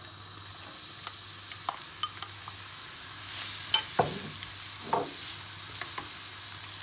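Chopped onions sizzling in hot coconut oil in a pan while a spoon stirs them, with scattered clinks and scrapes of the spoon against the pan. The sizzle swells about three seconds in, with the loudest knocks just after.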